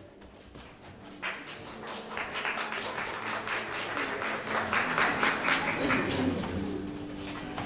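A small audience clapping, starting about a second in, building up and then dying away near the end.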